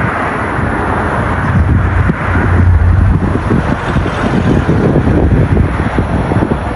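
Jet engines of a twin-engine airliner on the runway, heard from behind as a steady jet rumble that swells a little a couple of seconds in, with wind buffeting the microphone.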